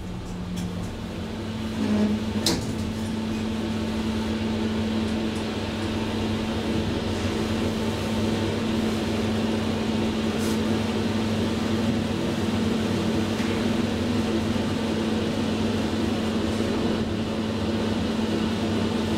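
Traction elevator car starting off and travelling through the shaft: a click and bump about two seconds in, then a steady running hum with a low even whine.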